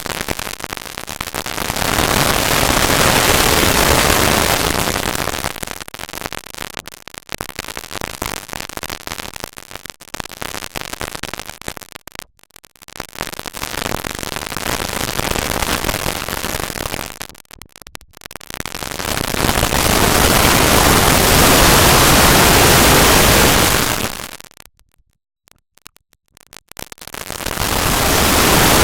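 Harsh, loud static-like noise that swells and fades in several waves, with a few brief dropouts and a near-silent gap of about two seconds late on before it comes back loud.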